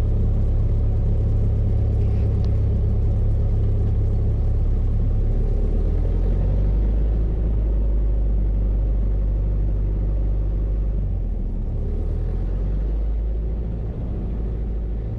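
Cessna 172 Skyhawk's piston engine and propeller running at low taxi power, a steady low drone heard inside the cabin. The drone settles a little lower about halfway through.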